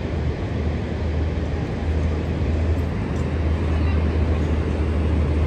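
Steady low rumble with a hiss over it, unbroken and without distinct events.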